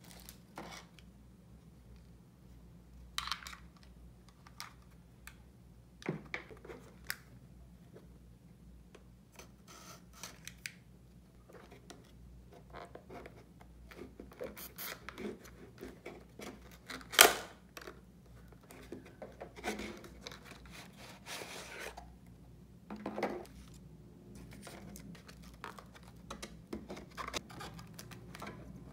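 Unboxing sounds: hands handling a cardboard hard-drive box and its clear plastic tray, with scattered taps, rustles and scrapes and one sharp, louder crack about seventeen seconds in.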